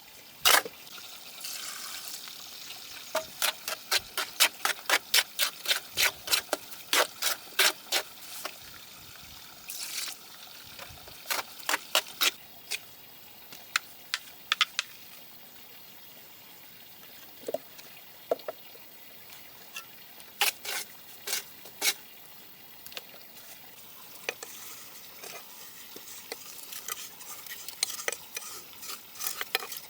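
Runs of short, sharp scraping strokes on something wet, several a second, coming in bursts with pauses between them.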